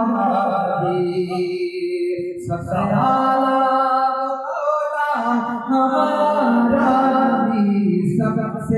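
A man singing a naat, an Urdu devotional poem, into a microphone: long held, ornamented notes in lines, with short breaks between them.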